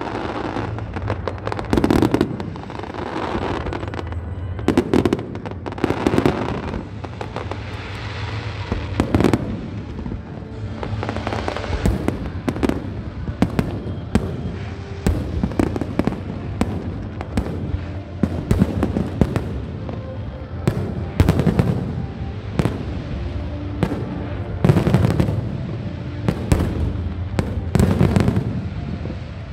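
Fireworks display: shells bursting in a near-continuous run of bangs and crackles, with the loudest clusters near the start and close to the end.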